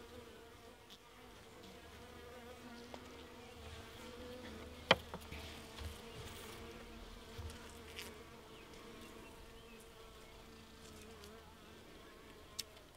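Honey bees buzzing at an open hive, a faint steady hum. A few short sharp clicks come over it, the loudest about five seconds in.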